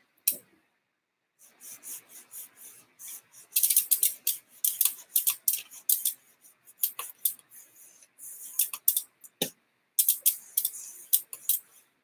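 Cloth rubbed briskly over the rim of a BMX bike's rear wheel, a quick run of short scrubbing strokes, cleaning it so the brakes will grip. A single knock about nine and a half seconds in.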